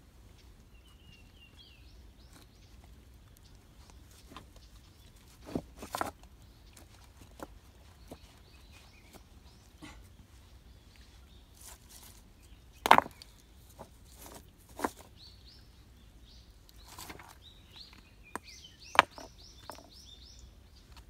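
Rocks knocking and clacking against one another as they are lifted and set in place by hand, a few separate sharp knocks, the loudest about halfway through. Small birds chirp faintly in between.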